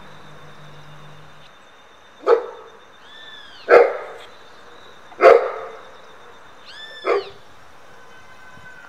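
A dog barking four times, roughly a second and a half apart. Between the barks come short, high chirps that rise and fall, over a faint steady high-pitched tone.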